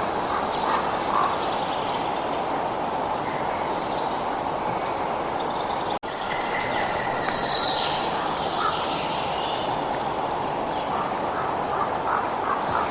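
Birds chirping and calling in short, scattered bursts over a steady rushing outdoor background. The sound cuts out for an instant about six seconds in.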